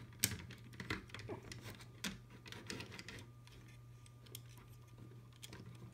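Light plastic clicks and taps of an HO scale model caboose being handled, set onto the track and coupled to the car ahead, scattered irregularly and thinning out in the second half, over a low steady hum.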